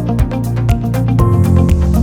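Background music with a steady beat and sustained synth-like notes.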